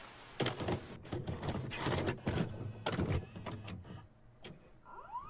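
Video cassette recorder loading and starting a VHS tape: a run of mechanical clicks and clunks with motor whirring, then a rising whine near the end that settles into a steady tone as playback starts.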